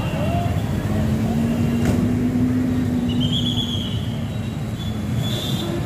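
Bus engine running with a steady low rumble as the bus moves slowly across the station yard. A steady low hum rises over it from about a second in to about five seconds in, and there is one sharp click about two seconds in.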